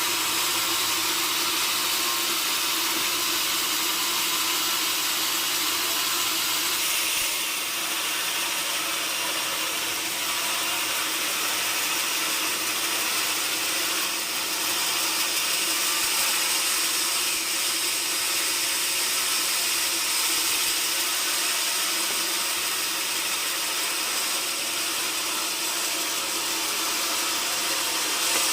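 Sawmill saw running steadily with a continuous hissing mechanical noise.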